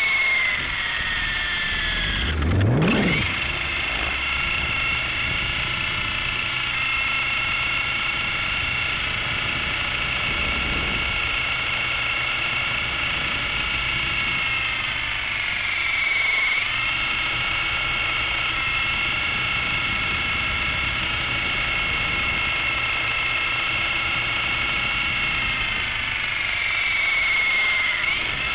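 A small RC helicopter's motor and rotor whining steadily, heard from its own onboard camera. The whine sags in pitch and picks up again around the middle and near the end, and a short, loud rising sweep comes about two to three seconds in.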